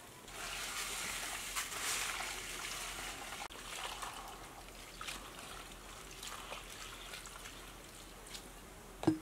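Water poured in a thin trickling stream from a glass jug onto rice in a plastic basin as the rice is washed by hand. The pour is heaviest over the first few seconds and then thins. There is a single sharp knock just before the end.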